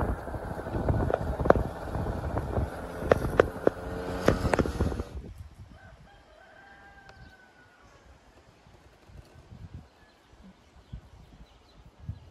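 A motor engine running, with wind on the microphone and a few sharp knocks, cuts off abruptly about five seconds in. Quieter surroundings follow, with a faint, drawn-out bird call.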